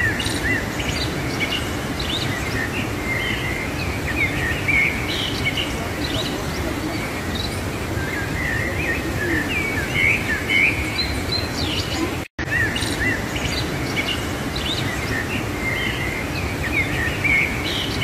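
Whitewater of the Athabasca River rushing steadily through a narrow rock canyon, with small birds chirping again and again over the water. The sound breaks off for an instant about twelve seconds in.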